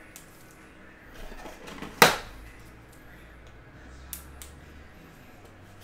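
Trading cards and card holders being handled on a desk: a brief rustle, then one sharp snap about two seconds in, and a couple of light taps near the end.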